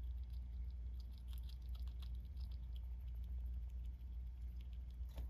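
Fancy rat nibbling and chewing a cherry tomato: a run of small quick clicks and smacks, with a sharper click just before the end, over a steady low hum.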